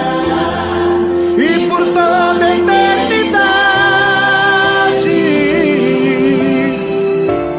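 Gospel song: long held sung notes, some wavering, over steady instrumental backing.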